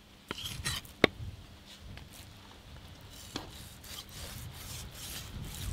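Knife cutting and scraping through the flesh of a large trevally, with a few sharp knocks, the loudest about a second in.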